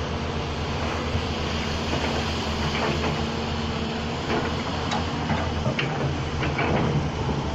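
Large diesel hydraulic excavators running under load while loading dumpers, a steady low engine drone with scattered short knocks and clanks.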